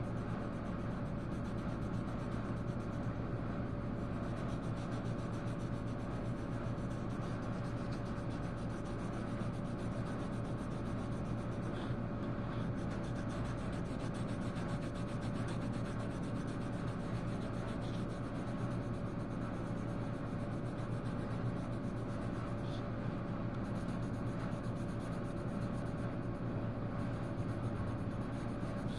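Colouring on paper: a steady, scratchy rubbing of the colouring tool across the page, over a steady hum.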